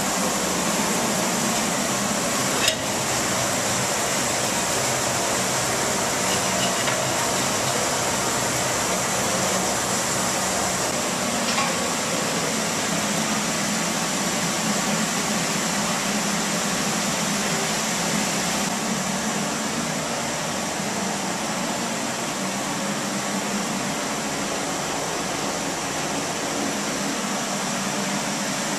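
A steady, even hiss with a low hum under it, and one sharp knock about three seconds in.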